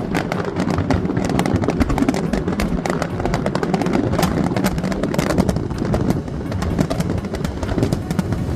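Loud background music with a dense, busy beat, starting suddenly at full volume.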